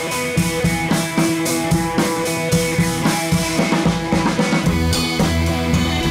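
Background music played on a drum kit and other instruments, with a steady drum beat and held notes.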